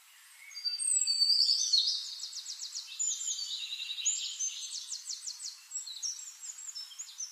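Birdsong: birds chirping and trilling quickly, starting about half a second in and loudest over the first couple of seconds, with no low sound beneath.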